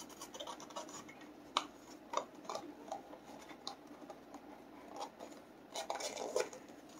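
Folded greeting-card halves scratching and rubbing as the lid is worked onto the base of a small card box, with scattered small clicks, a few of them sharper about one and a half, two and six seconds in.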